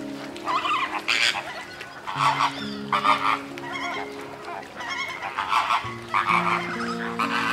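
A flock of greater flamingos honking and gabbling in repeated short bursts, over soft background music with slow held notes.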